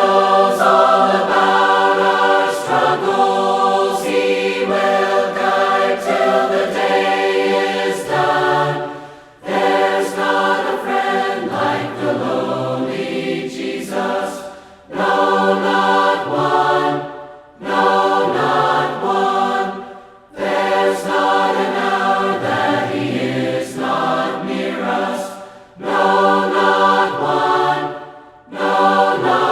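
A congregation singing a hymn a cappella in parts. The many voices sing in phrases of a few seconds, with short breaks for breath between them.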